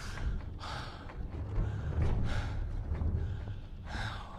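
A man breathing hard: three sharp breaths about a second and a half apart, over a low, steady rumble.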